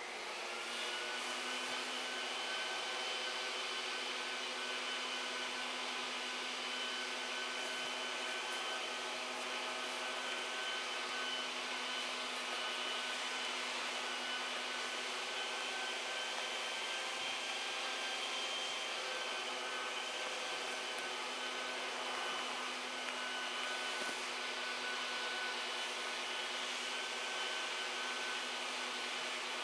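Small electric blower motor running steadily at an even pitch, switched on right at the start. In this repair it is most likely the heat gun used to harden the heat-cure filling compound.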